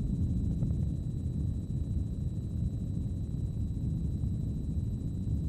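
Helicopter heard from inside its cabin: a steady, deep rumble of rotor and engine noise.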